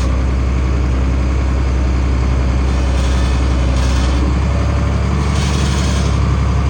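International 1566 tractor's six-cylinder diesel running steadily under load, pulling a field cultivator set shallow in the ground. The engine note shifts slightly about five seconds in, with a few short bursts of hiss over it.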